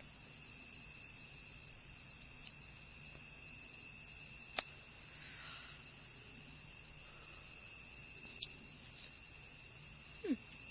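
Steady high-pitched chorus of night insects, with one strand of the trilling stopping and starting every few seconds. A couple of faint clicks are heard.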